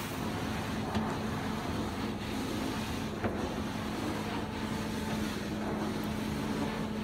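Hot-water carpet extraction wand stroked across carpet, its vacuum hose drawing air and water: a steady rushing hiss over a constant low hum from the extractor's vacuum.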